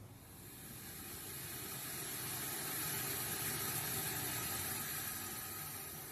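A steady hiss of noise with no tone in it, swelling slowly to its loudest around the middle and easing off near the end.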